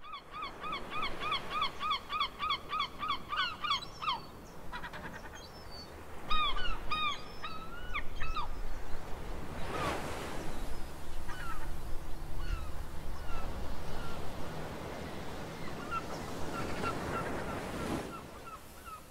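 Small waves breaking and washing over a shingle beach, swelling loudest about ten seconds in and again near the end. Over the surf, birds call: a fast run of repeated calls, about four a second, for the first few seconds, then scattered single calls.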